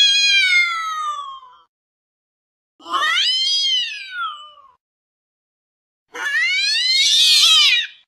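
Angry cat giving three long, drawn-out yowls, each one and a half to two seconds long. The first falls in pitch; the next two rise and then fall, and the last has a harsh, rasping edge.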